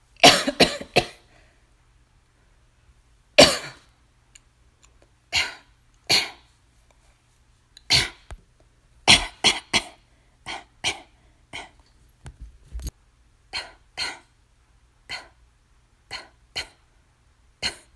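A woman coughing repeatedly: a quick fit of about four coughs at the start, then single and paired coughs every second or so, growing shorter and quieter toward the end.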